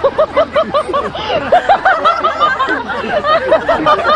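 A flock of chickens clucking, many short overlapping calls from several birds at once.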